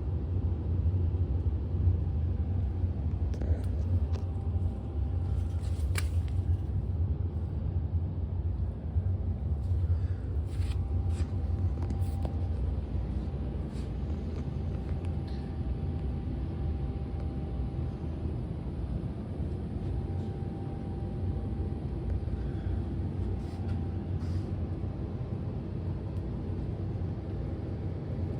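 Water heater giving off a steady low rumble, with a faint steady hum above it and a few light clicks.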